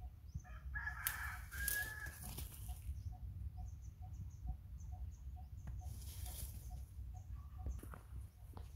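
A long animal call about half a second in, lasting about two seconds, over a faint short chirp that repeats about twice a second.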